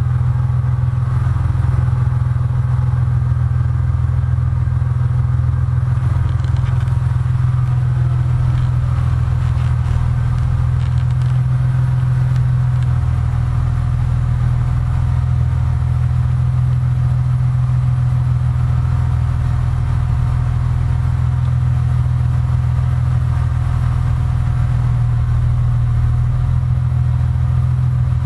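BMW Z3 M Coupe's straight-six engine idling steadily through an Akrapovic titanium exhaust with quad tailpipes, a deep, even exhaust note that does not rise or fall.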